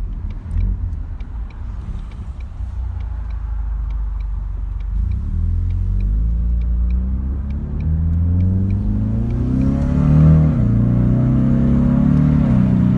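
2019 Ford Mustang EcoBoost's 2.3-litre turbocharged four-cylinder, with active exhaust, accelerating: the engine note rises in pitch from about five seconds in, dips briefly at a gear change near ten seconds, then holds steady. A regular light ticking runs through the first part.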